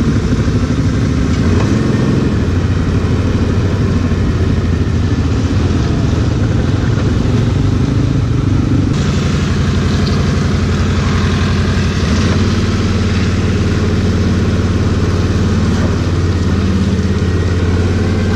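Quad (ATV) engine running while riding, a steady drone with a brief rise in engine pitch near the end.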